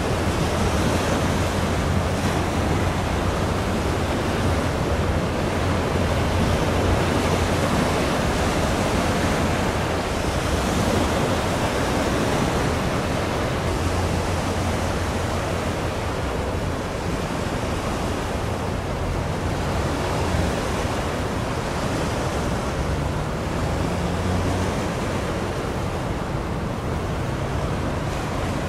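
Choppy sea water washing against the shore under a steady wind, with wind noise on the microphone.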